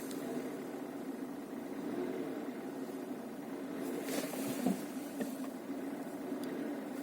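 Kia Ceed's G4FA 1.4-litre four-cylinder petrol engine running steadily at low revs, heard from inside the cabin, with the ticking noise the owner is chasing. A brief hiss comes about four seconds in.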